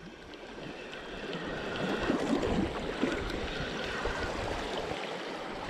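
Sea water washing and surging around a coastal rock platform: an even rushing wash that swells slightly after the first second.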